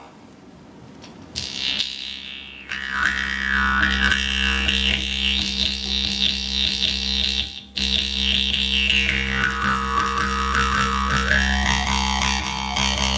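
Khomus (Yakut jaw harp) playing a steady buzzing drone, its bright overtones sliding up and down as the mouth shape changes. It comes in faintly about a second in, swells soon after, and breaks off briefly about halfway before going on.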